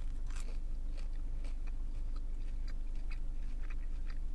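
Close-up chewing of a bitten chicken nugget: small, irregular soft crunches and mouth clicks, over a steady low hum.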